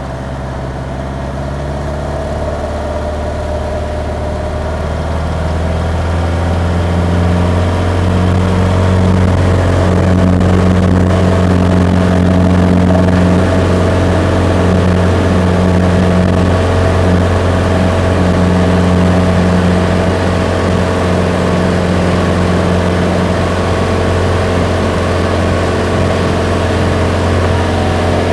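Light single-engine plane's piston engine and propeller, heard from inside the cockpit: the engine speeds up over the first five or six seconds and then runs steadily at high power while the plane rolls along the runway.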